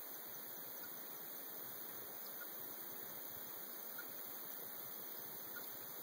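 Radio-telemetry receiver giving faint, short beeps at an even pace of about one every one and a half seconds over a steady hiss: the pulses picked up from a box turtle's radio transmitter.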